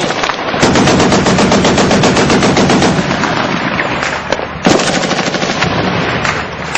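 Airsoft gun firing on full auto in two long, rapid bursts, a fast even rattle of shots, with a short break about two-thirds of the way through.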